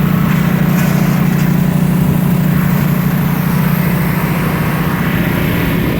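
Portable generator engine running steadily, a low even drone.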